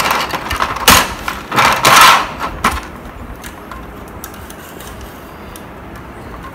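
Plastic LEGO bricks being handled and pressed together: a few loud handling noises in the first two seconds, then scattered light clicks.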